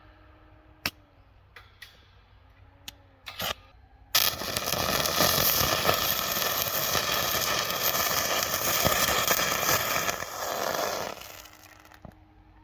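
Stick (arc) welding with a basic electrode on galvanized steel tube: a few sharp clicks, then about four seconds in the arc catches and crackles and hisses steadily for about seven seconds, dying away near the end.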